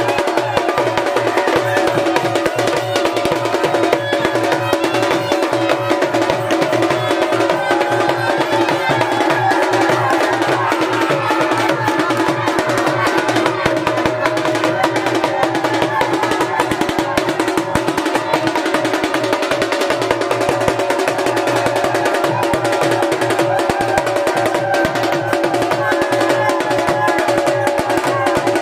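Dhol drums beaten in a fast, continuous rhythm for dancing, with a steady held tone running over the beat.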